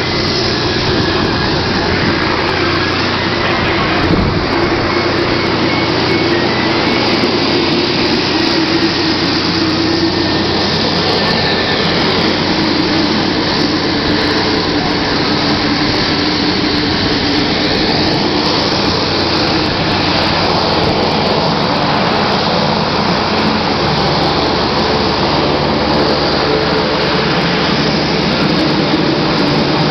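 A large vehicle engine running steadily at idle, a continuous low hum with no change in speed.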